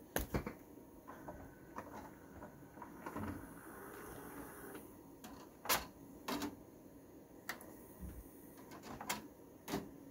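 Sony CDP-CA70ES five-disc carousel CD changer's mechanism: the tray motor whirring as the drawer slides out and the carousel turns from disc to disc, with several sharp clicks of the mechanism and front-panel buttons.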